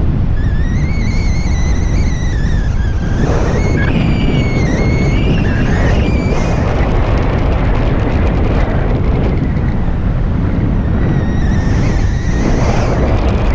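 Heavy wind buffeting the microphone in flight. A high, wavering whistle comes through it for the first half and again near the end.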